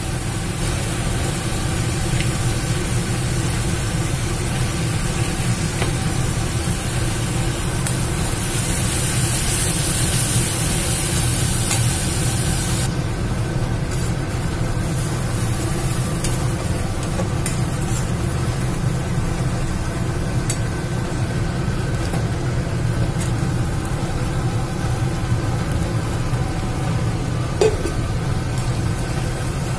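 Spice paste of onion, garlic and green chilli with turmeric frying in oil in a pan, sizzling while a spatula stirs and scrapes it, with occasional light clicks. A steady low hum runs underneath. The sizzle is brighter for a few seconds before changing suddenly about 13 seconds in.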